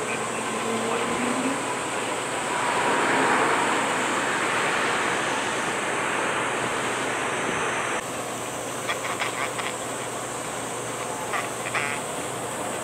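Jet airliner engines running as the aircraft passes, a steady rushing noise that swells about three seconds in. About eight seconds in it drops suddenly to a quieter background with short bursts of rapid clicking.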